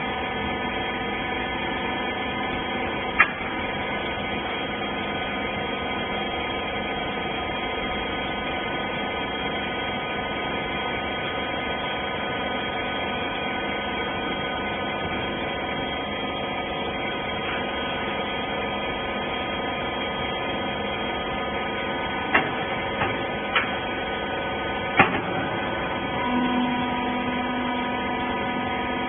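Hydraulic clothes baler running: a steady machine hum made of several fixed tones, broken by a few sharp clicks or knocks, one about three seconds in and a cluster about 22 to 25 seconds in. A new steady lower tone joins about 26 seconds in.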